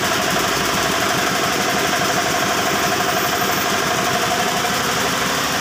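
Yanmar TF105 single-cylinder diesel engine driving a belt-driven twin-cylinder air compressor pump, both running steadily with an even, fast pulse.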